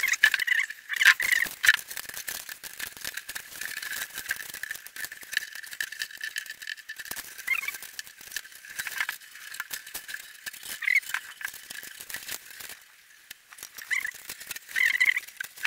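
Cable with a ball on its end rattling and clicking around inside an empty plastic fuel jerrycan as the can is moved about to work the ball out through a small hole at the bottom. There are a few short squeaks along the way.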